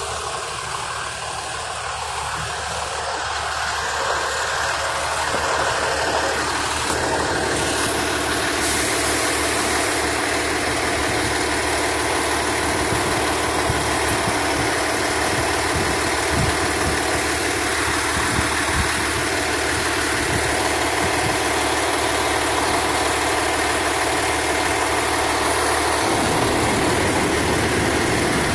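Fire engine's diesel engine idling steadily, growing louder over the first few seconds and then holding steady.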